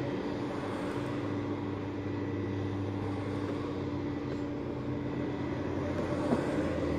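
Steady low vehicle hum with a constant drone tone, as heard from inside a parked car with its door open.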